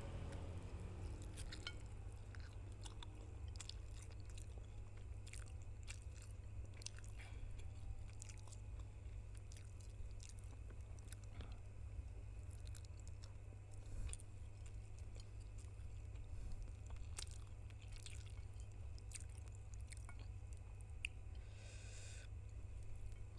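Close-miked chewing of spicy noodles: a string of small mouth clicks and smacks, irregularly spaced, over a steady low hum.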